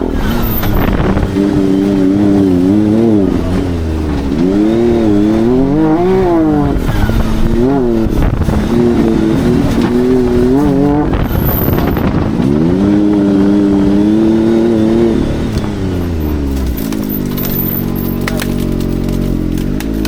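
Can-Am Maverick R side-by-side's turbocharged three-cylinder engine being driven hard, its revs climbing and dropping again and again through acceleration, shifts and lifts. It settles to a steadier, lower note for the last few seconds.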